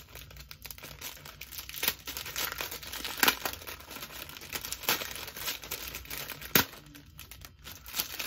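Small clear plastic bag crinkling and crackling as it is worked open by hand, in irregular rustles with a few sharp crackles, the loudest about six and a half seconds in.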